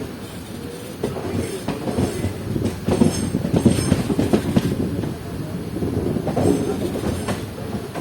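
Express passenger train running, its wheels clattering over the rail joints with a rough rumble that grows louder about three seconds in.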